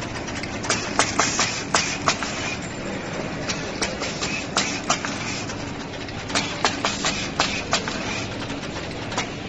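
Automated SMT pick-and-place machine running: sharp mechanical clicks from its multi-nozzle placement head and tape feeders come in irregular quick runs over a steady machine hum.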